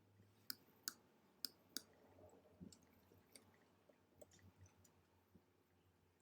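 Computer mouse clicking: four sharp clicks in the first two seconds, then a few fainter clicks, over a faint low hum.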